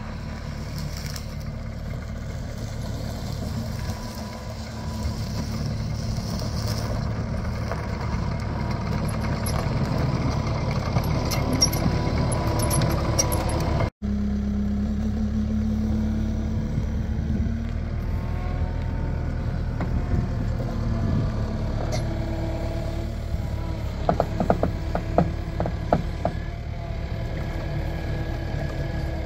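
Takeuchi TL8 compact track loader running steadily as it travels with a load of lumber on its forks and raises it. A short run of rattling knocks comes near the end.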